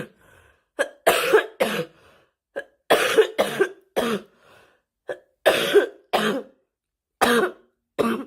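A girl coughing repeatedly, in short runs of one to three sharp coughs with brief pauses between, some of the coughs voiced.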